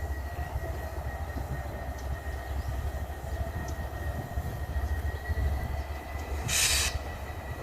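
WDG5 'Bheem' diesel locomotive running with a steady low engine rumble and a faint steady high whine. A short burst of air hiss comes near the end.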